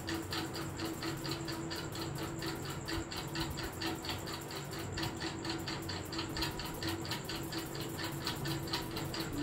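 Rapid, even ticking, about six ticks a second, over a steady low hum.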